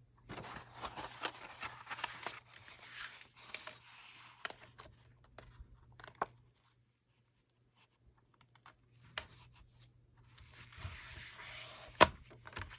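Sheets of paper and card being handled, rustling and sliding against each other, with a quiet pause in the middle and a single sharp click near the end.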